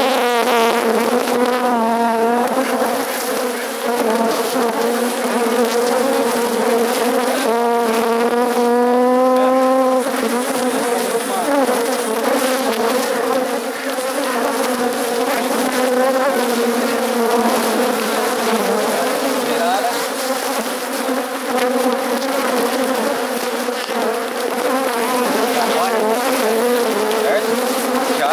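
Honeybees buzzing loudly around an opened hive, a dense steady hum. A few rising sweeps in pitch stand out about two seconds in and from about eight to ten seconds.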